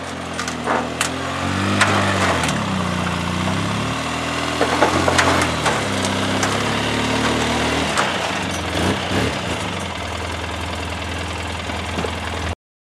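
Off-road vehicle engine running, its pitch rising and falling as it revs, with scattered clanks and knocks. It cuts off suddenly near the end.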